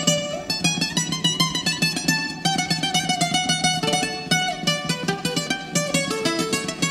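Greek bouzouki instrumental music: a fast plucked melody of rapid repeated notes over a steady rhythmic accompaniment.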